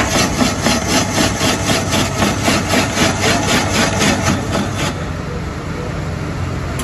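Ice shaving machine grating a block of ice into a bowl: a rhythmic rasping scrape, about five strokes a second, that stops about five seconds in.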